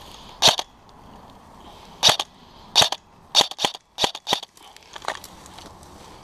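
Airsoft guns firing single shots: about eight sharp pops at irregular spacing, several coming in quick succession around the middle.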